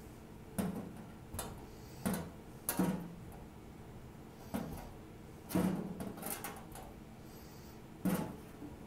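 Metal lint screen of a 1956 Whirlpool Imperial dryer being handled during cleaning: a series of sharp, irregular knocks and clicks, about eight of them, spread unevenly through the stretch.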